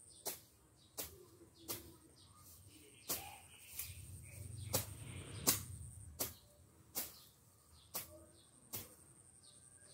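Quick swishing strokes of a hand tool cutting through weeds, about ten in a row at roughly one a second, with a rustling stretch of cut growth in the middle.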